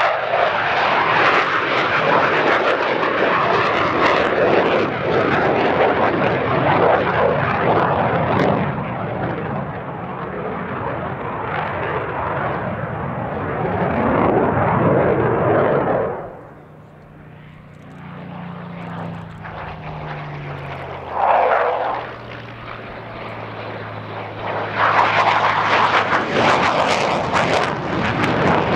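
Eurofighter Typhoon's twin Eurojet EJ200 turbofans roaring through a display pass. About halfway through the roar drops away, leaving a quieter engine note that falls in pitch, then it builds back up loud near the end.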